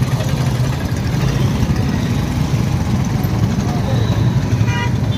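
Royal Enfield Bullet single-cylinder motorcycle engine running with a steady low engine note, over road noise.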